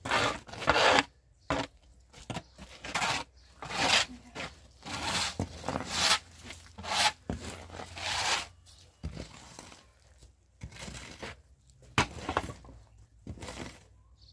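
Hoes scraping wet mud across a hard concrete yard in repeated, irregular strokes, roughly one a second, with a few sharp knocks of a blade on the ground.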